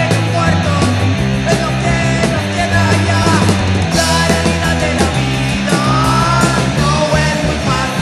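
Loud hardcore punk record: distorted guitar, bass and drums, with a cymbal crash about four seconds in.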